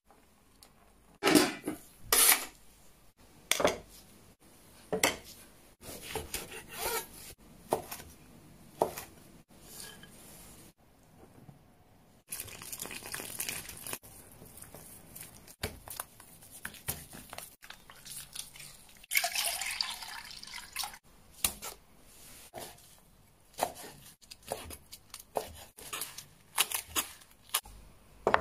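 Kitchen food-prep sounds: a run of sharp knocks and clatters of dishes and utensils, broken by two stretches of a few seconds of stirring and liquid sounds. In the first stretch, chopsticks are mixing flour and water into a batter in a ceramic bowl.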